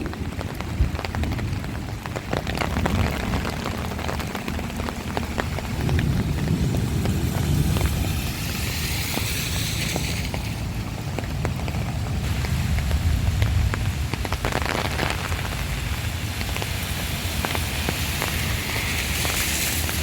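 Heavy rain pelting a surface, a dense patter of sharp drop impacts over a steady low rumble. A brighter hiss swells up for a couple of seconds around the middle and again near the end.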